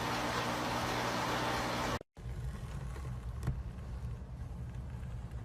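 Steady engine and road noise of a car, cut off abruptly about two seconds in. A quieter low rumble follows, with a single faint knock.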